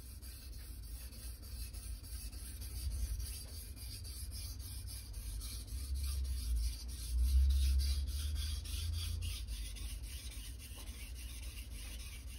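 Steel kitchen knife blade being stroked back and forth on a wet Japanese whetstone to sharpen its edge. It is a steady, gritty rubbing in quick even strokes, about three a second, with a low rumble underneath that is strongest in the middle.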